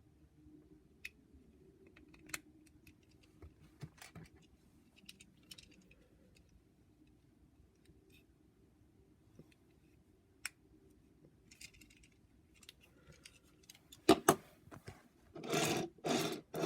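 Small plastic clicks and taps as a toy Transformers figure is handled and its guns are pegged into place. Near the end come a couple of sharp plastic clacks, then the toy van's wheels rolling back and forth across a surface in several short passes.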